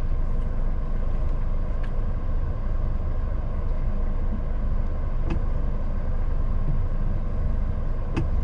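Scania S500 truck's diesel engine running steadily while the truck rolls slowly at low speed, heard from inside the cab. A few faint clicks come over the rumble.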